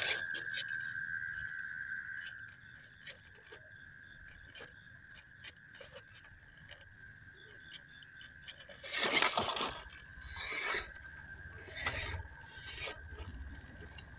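An MN Model MN99S RC crawler's electric motor and gears whir in short bursts while its tyres scrape and knock over wooden logs; the loudest burst is a little past halfway, with a few more shortly after. A steady high insect trill runs underneath, with small scattered ticks.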